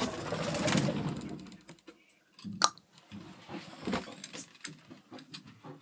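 Handling noise from a handheld camera being moved around: rubbing and rustling at first, then a sharp click about two and a half seconds in and scattered small clicks.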